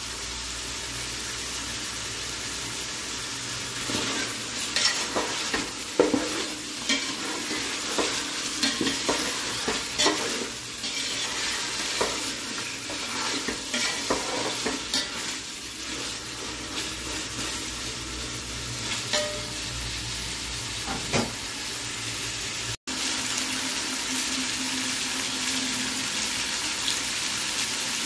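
Mutton pieces sizzling in hot oil in a metal pot, stirred with a utensil that scrapes and knocks against the pot between about four and twenty-one seconds in; after that the sizzling goes on steadily.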